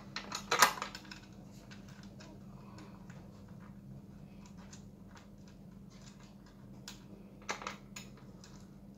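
Small metallic clicks and clinks of screws and a steel mounting bracket being handled and fitted onto a plastic child bike seat, loudest about half a second in and again near the end, over a steady low hum.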